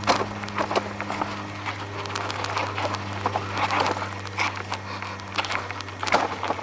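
Bicycle rattling and clattering over a rocky dirt trail, with irregular knocks as the tyres hit stones, over a steady low hum.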